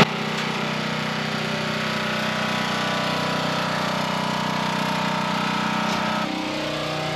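Champion dual-fuel portable generator's single-cylinder engine running steadily, with two extension cords plugged in. Its pitch and level shift slightly about six seconds in.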